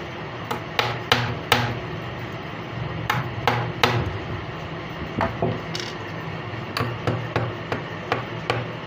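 Small hammer tapping a tiny bearing into the hub of a 12-volt cooling fan: a dozen or so sharp taps in irregular clusters.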